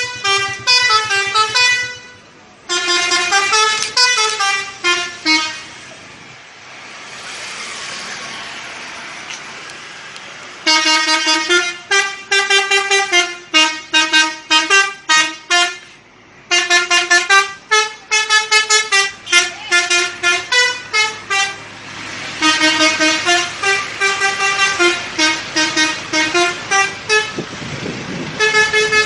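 A multi-tone 'telolet' bus horn plays quick melodic sequences of short, loud, changing notes in repeated bursts. A stretch of rushing noise with no horn comes about a quarter of the way in.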